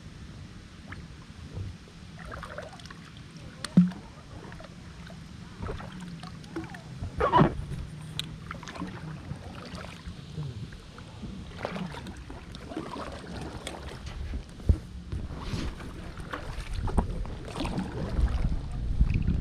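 Paddle strokes splashing in the water beside an inflatable boat, an aluminium paddle dipping and pulling, with a few sharp knocks along the way and louder low rumbling near the end.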